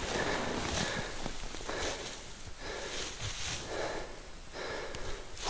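Heavy, quick breathing, a run of rhythmic breaths in and out.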